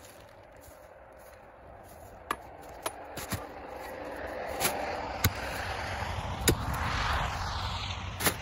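Pickaxe striking frozen garden soil: about seven sharp knocks at uneven intervals as the blade bites into ground frozen solid, over a rushing noise that swells through the second half.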